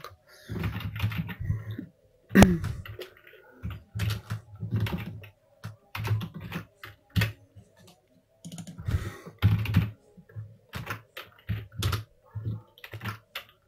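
Computer keyboard typing: irregular runs of keystrokes with short pauses between them, as a network name and password are entered.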